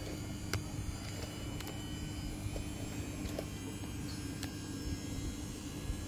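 Samsung ecobubble 8kg front-loading washing machine draining its sudsy wash water, the drain pump giving a steady hum with a few faint clicks.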